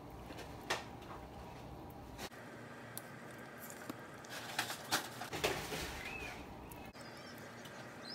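Raw squid being skinned by hand: soft wet squelching and sticky peeling as the skin is pulled away from the body tube. There are scattered faint clicks, with a short run of wet crackles a little past halfway.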